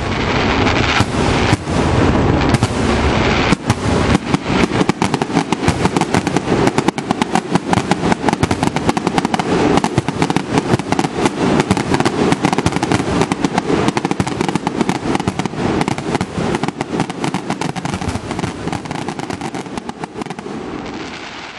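Aerial fireworks going off in quick succession: a dense run of bangs and crackling, many per second. A few heavier booms come in the first few seconds, and the sound slowly eases off near the end.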